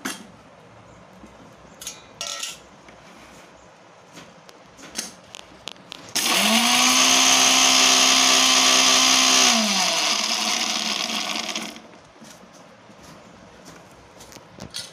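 Electric mixer grinder given one short run to coarsely grind ginger, garlic and fennel seeds. The motor rises in pitch as it spins up about six seconds in, runs steadily for about three seconds, then winds down and stops. A few light knocks come before it.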